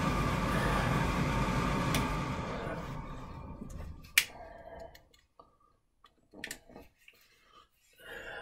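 Squirrel-cage blower fan running with a steady whoosh, which winds down and dies away about three to five seconds in. After that, a lighter clicks sharply, twice, while a piece of paper is lit.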